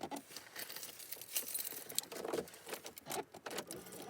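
Irregular light clicks, taps and rustles of things being handled in a car interior, with no steady sound.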